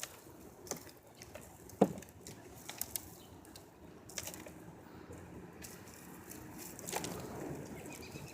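Hands digging through loose soil in a grow bag to pull out sweet potatoes: soft rustling and scraping with scattered clicks and knocks, and one louder thump about two seconds in.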